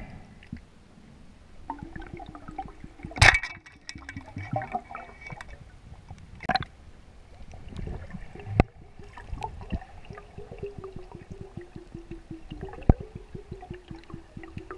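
Underwater sound picked up through a diver's camera housing: a steady crackle of tiny clicks with several sharp knocks, the loudest about three seconds in. A low hum drifts slowly down in pitch through the second half.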